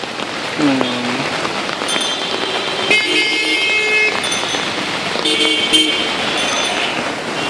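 Steady rain with vehicle horns honking in traffic: one horn blast about three seconds in lasting about a second, and another about five seconds in.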